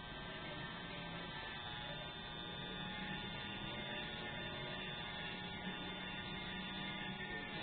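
Electric hair trimmer running with a steady hum as it cuts a design into short hair.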